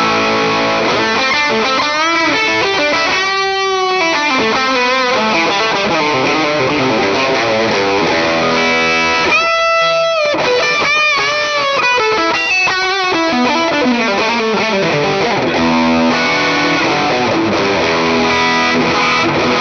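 Electric guitar played through a Valeton GP200R multi-effects pedal on its distorted "Rock" preset: a lead passage of held notes with string bends and vibrato.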